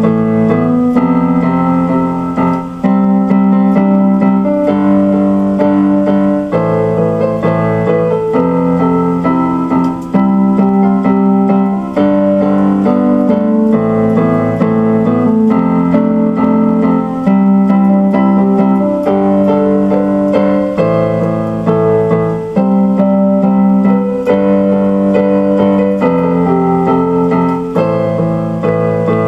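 Electronic keyboard played with a piano sound: held chords changing every second or two in a steady, unhurried progression.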